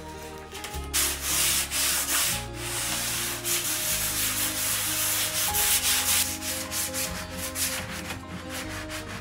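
Sanding sponge rubbed back and forth by hand over spray primer on a laminate dresser top. It is a scratchy hiss made of quick repeated strokes, starting about a second in.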